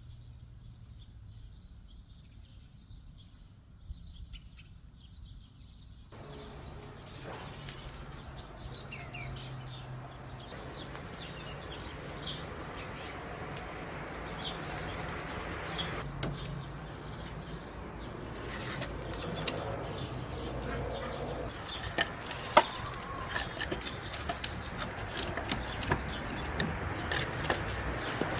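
Small birds chirping, with a low steady hum and scattered sharp clicks and knocks that set in about six seconds in; the loudest clicks come about twenty-two seconds in.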